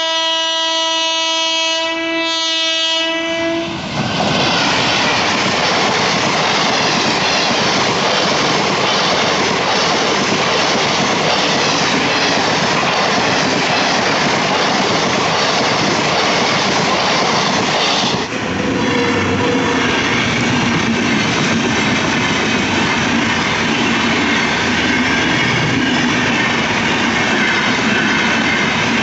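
An Indian Railways electric train sounds one long, steady horn blast lasting about three and a half seconds as it nears a level crossing. Its coaches then pass at speed with a loud rushing rumble and wheels clacking over the rail joints. About eighteen seconds in, the sound switches abruptly to another passenger train running past a crossing.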